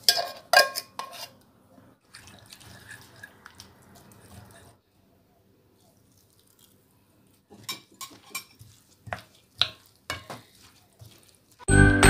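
A metal fork clinking and scraping against a sardine tin and a glass bowl as canned sardines are scooped out, a handful of sharp clinks at the start; more scattered clinks of a utensil on the glass bowl come later. Bright jingly music starts near the end.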